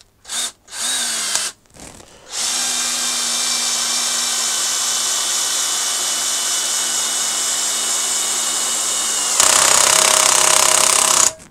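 Old cordless drill-driver driving a long Torx T30 screw into a block of rafter timber: two short trigger starts, then a steady run of about seven seconds. Near the end the sound turns louder and higher for about two seconds before stopping, with the clutch set at 15 of 20 and the screw left not quite flush.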